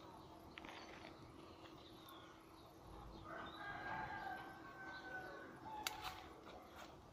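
A rooster crowing once, faint: one long call lasting a little over two seconds, starting about three seconds in. A sharp click follows just after it.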